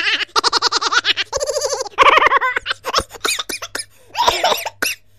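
High-pitched laughter in rapid runs of "ha-ha" pulses, breaking into shorter giggles near the end.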